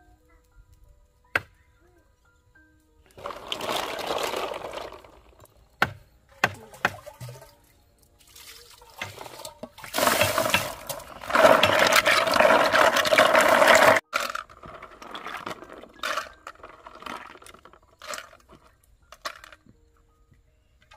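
Water poured from a pot into a red plastic basin of snails, splashing over the shells. There is a shorter pour about three seconds in, then a longer, louder one about ten seconds in that cuts off suddenly some four seconds later. Scattered knocks and softer splashing follow.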